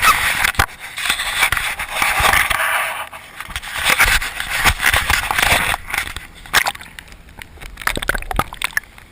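Water splashing and sloshing close by, heaviest in the first few seconds, with scattered knocks and clicks throughout.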